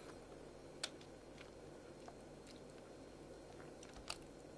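A few isolated computer keyboard key clicks, the loudest about a second in, over near silence and a faint low hum.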